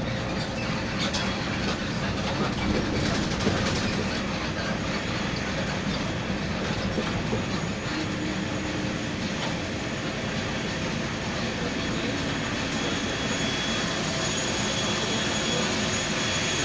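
Steady engine and road rumble with rattling inside a moving shuttle bus's cabin. A steady high whine joins it over the last few seconds.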